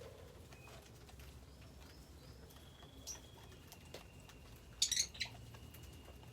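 Lovebirds chirping: a few short high calls, the loudest a quick cluster of two or three sharp chirps about five seconds in, over faint scratching and tapping.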